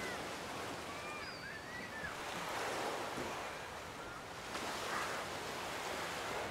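Ocean waves washing onto a beach, a steady surf hiss that swells twice as waves break. A few faint, short whistle-like calls sound in the first two seconds.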